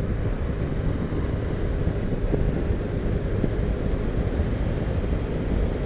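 Steady wind noise on the microphone over the engine and road noise of a BMW R1200RT motorcycle cruising at a constant speed on the open road.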